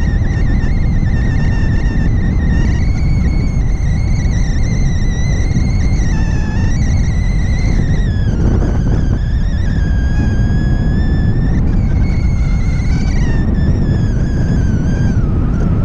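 Wind rushing over the microphone of a paraglider in flight, with a continuous high whistle that wavers in pitch and dips briefly a few times.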